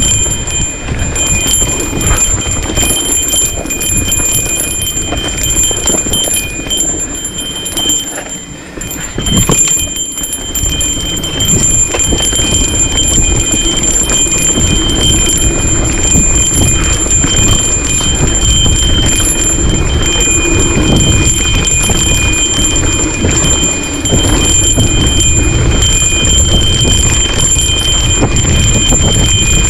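Mountain bike riding down a rough, rocky dirt trail: tyres rolling over dirt and stones, the bike rattling and knocking over bumps, under a steady rumble of rushing air. There is a brief quieter moment about eight seconds in.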